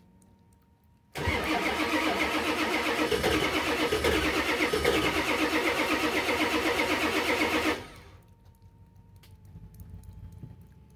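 Ford 7.3 IDI V8 diesel being cold-started, heard at the tailpipe. About a second in it cranks and turns over loudly with a fast, even rhythm for about six and a half seconds, then the sound drops away suddenly to a low rumble.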